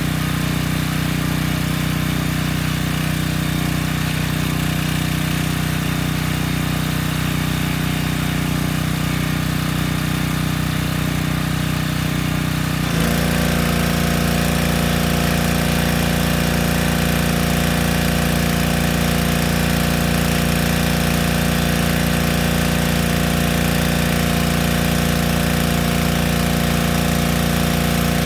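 Yamaha PowerStroke 3100 pressure washer's petrol engine running steadily. About halfway through its sound changes abruptly and turns slightly louder, with more hiss on top.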